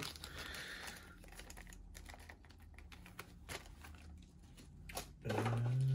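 Faint, scattered light clicks and taps of small knife parts being handled on a leather desk mat, with a plastic parts bag rustling briefly at the start.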